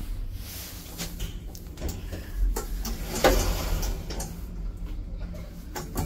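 KONE lift car doors sliding open, with several clicks and knocks from the door mechanism over a steady low hum. The loudest knocks come about halfway through.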